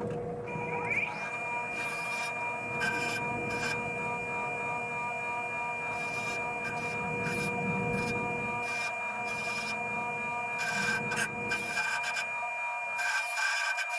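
A power tool's motor spins up with a short rising whine, then runs at a steady high whine, while an abrasive rasping against the workpiece comes and goes in repeated short bursts.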